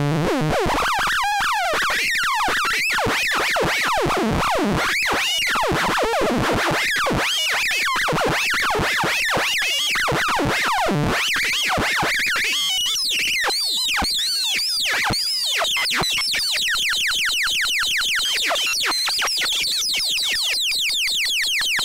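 Make Noise Richter Wogglebug's Smooth VCO heard directly: a shark-tooth waveform oscillator whose pitch keeps gliding up and down in quick arcs, wandering at random.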